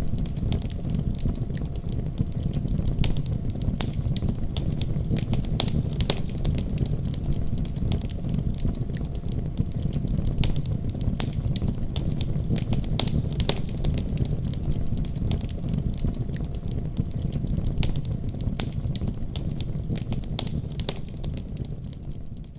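Fire burning in a fireplace: a steady low rumble of flames with frequent sharp, irregular crackles and pops, fading out near the end.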